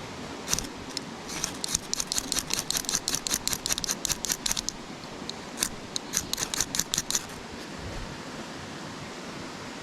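Fire starter being struck over and over to throw sparks: quick, sharp scraping strikes, several a second, in two runs. The first run begins about a second and a half in, and the second comes near the middle.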